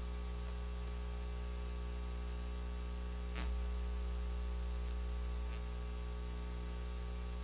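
Steady electrical mains hum, a low buzz with a ladder of overtones over faint hiss from the broadcast audio feed. There is a faint click about three and a half seconds in.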